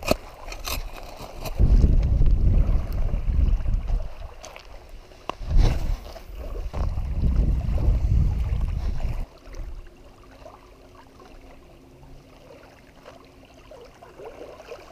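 Wind buffeting the microphone: a loud low rumble in two long stretches, the second ending abruptly about nine seconds in. A few light clicks come at the start, and the rest is a quiet steady background.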